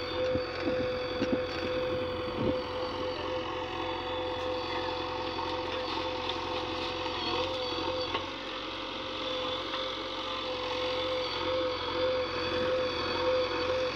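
Diesel engines of a JCB 3DX backhoe loader and a Sonalika tractor running steadily while the backhoe loads soil into the tractor's trolley.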